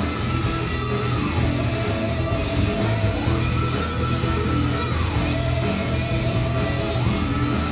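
A live rock band with electric guitars, bass and drums playing, over which an electro-theremin slides up an octave, holds the high note, and slides back down, about every three and a half seconds.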